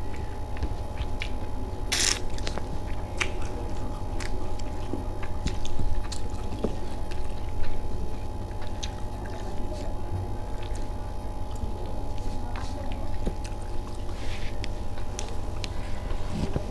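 A person chewing and eating food close to the microphone, with scattered small mouth and utensil clicks and one short sharp noise about two seconds in, over a steady low hum.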